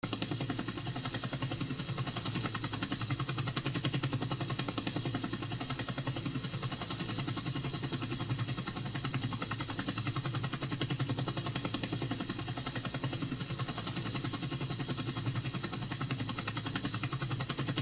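A steady motor-like hum with a fast, even pulse, holding the same level throughout.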